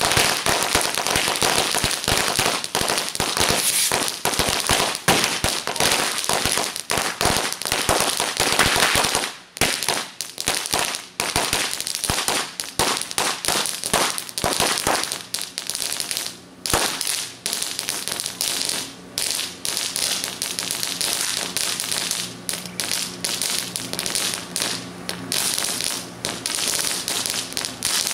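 Hundreds of small Black Cat firecrackers going off in a rapid, overlapping stream of bangs. After about ten seconds they thin out to scattered pops and crackles with short gaps between them.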